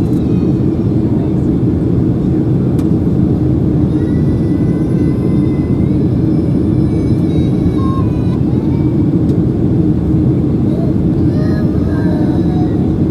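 Steady cabin noise inside a Boeing 737-800 during descent: a constant rush of airflow and the CFM56-7B engines with a low hum. Faint voices come through now and then.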